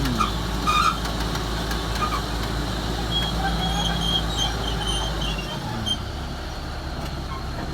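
Komatsu D375A bulldozer's six-cylinder diesel engine running hard under load, a steady deep drone. About five and a half seconds in, its low note drops away and the engine carries on a little quieter.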